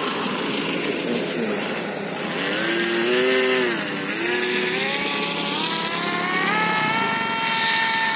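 Radio-controlled pusher plane's motor and propeller throttling up for a takeoff run: a whine that comes in about two and a half seconds in, dips briefly, then climbs in steps to a high, steady pitch, over a steady rushing noise.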